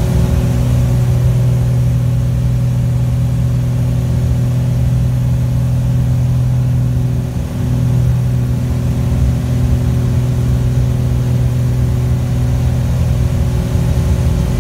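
Twin piston engines and propellers of a Piper PA-31 Navajo in flight, heard from inside the cockpit as a steady, loud drone. The drone dips briefly about halfway through.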